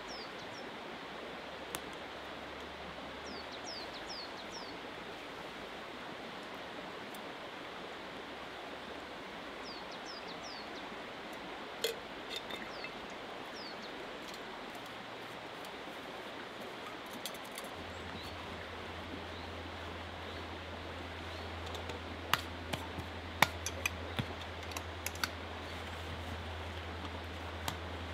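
Steady rushing of a small river flowing, with brief high chirps of small birds in the first half. Near the end a run of sharp clicks and clinks as camp gear is handled.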